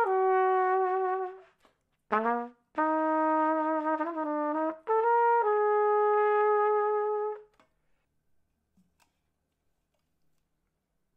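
B-flat piston-valve trumpet playing sustained notes: one held note, a brief one, then a longer phrase of held notes stepping up and down in pitch that stops about seven and a half seconds in.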